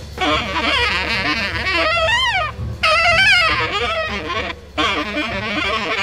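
Free jazz horn ensemble of tenor saxophone, trumpet and alto saxophone playing together with wide vibrato. One horn swoops up and back down about two seconds in, and the sound breaks off briefly about three-quarters of the way through.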